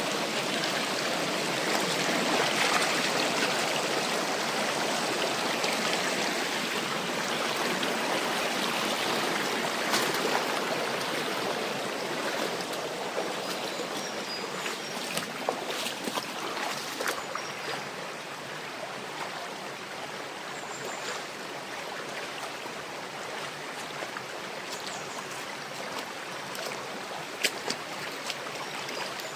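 Steady rush of a forest stream flowing over rocks, a little louder over the first ten seconds, with scattered sharp clicks in the second half.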